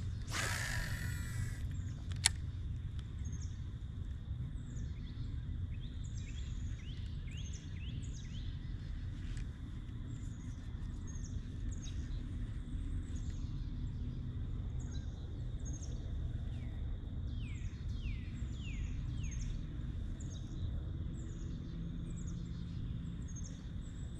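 Birds chirping over and over in short, falling notes above a steady low rumble. Right at the start, a brief rushing whoosh as a lure is cast from a spinning rod, then a sharp click about two seconds in.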